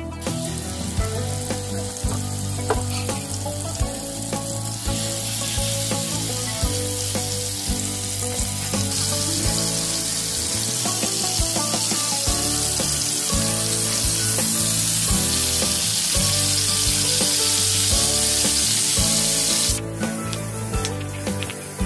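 Chicken breasts sizzling and frying in hot oil and butter in a pan. The sizzle grows louder about five seconds in and again a few seconds later, then stops abruptly near the end.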